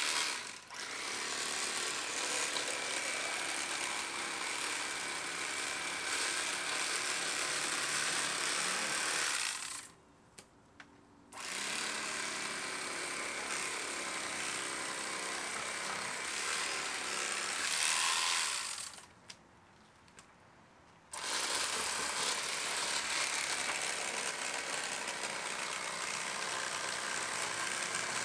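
Electric fillet knife running as it cuts through a walleye, a steady motor buzz. It stops twice for a second or two, about ten seconds in and again near nineteen seconds, then starts up again.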